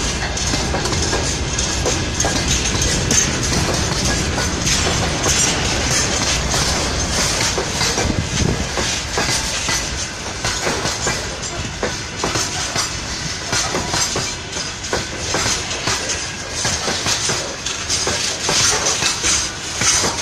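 Freight train of open-top gondola wagons rolling past close by. The wheels run on the rails with a steady stream of clickety-clack knocks as the wheelsets cross the rail joints.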